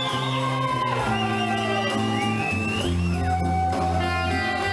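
Instrumental background music led by electric guitar, its melody notes sliding in pitch, over a bass line.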